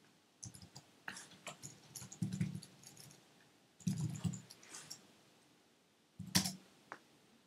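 Keystrokes on a computer keyboard: a run of irregular clicks and taps as a web address is typed, with a louder keystroke near the end.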